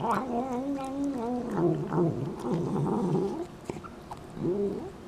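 Domestic cat making murmuring vocal sounds while it eats wet food: one long wavering call, then a run of shorter calls, and a brief one near the end.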